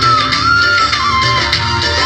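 Instrumental music: a single melody line sliding up and down over a dense low accompaniment, with no singing.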